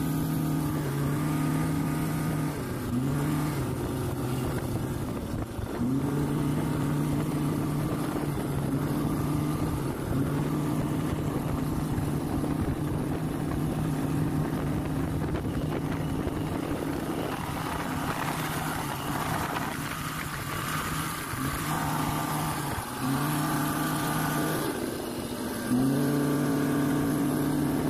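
Speedboat engine running under load while towing, its tone dropping away and climbing again several times as the throttle changes, over the steady hiss of the boat's wake.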